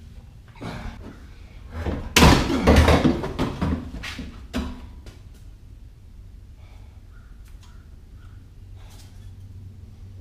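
Banging and scraping from under a car as an exhaust pipe section is worked loose. The noise is loudest in a dense clatter of knocks from about two seconds in to about four and a half seconds, then falls to a few lighter knocks.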